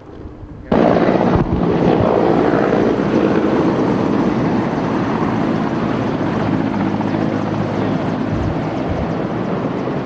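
Firefighting helicopter's rotor and engine running steadily, cutting in suddenly about a second in and staying loud.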